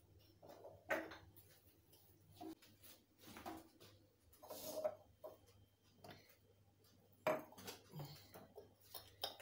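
Light knocks and clinks of spice jars and dishes being picked up and set down on a tiled kitchen counter, scattered at irregular moments, with the sharpest knocks about a second in and again near the end.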